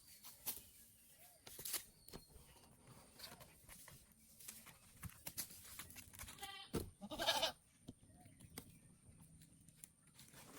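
Goat bleating once, about six and a half seconds in, a loud call with a wavering, quavering tone. Scattered light knocks and rustles fill the rest.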